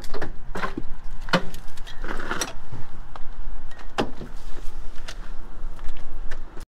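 A few sharp clunks and rattles from things being handled at a vehicle's open door, over a steady low rumble. The sound cuts out briefly near the end.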